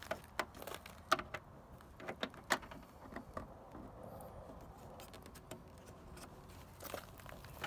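Clicks and light knocks as a replacement heated side mirror for a Ford Crown Victoria is handled and fitted against the door's mirror mount. Several sharp clicks come in the first three seconds, with one more near the end.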